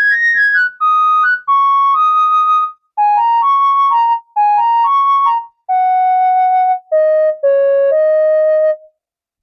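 Roland System-8 synthesizer playing a Jupiter-8 preset: a bright single-note lead line in short melodic phrases with brief gaps between them, moving lower in pitch toward the end and stopping about nine seconds in.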